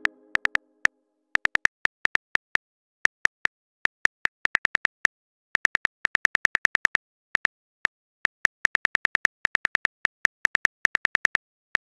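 Smartphone keyboard click sound effect: short, crisp taps in irregular runs of up to about eight a second, with pauses between the runs, as a message is being typed.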